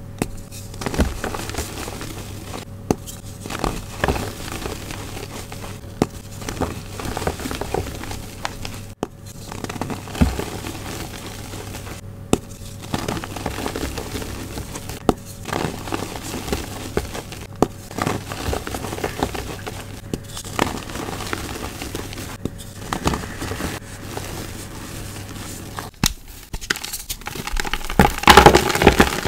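Blocks of gym chalk crushed and crumbled between the fingers: a run of dry crunches and crackles, loudest near the end.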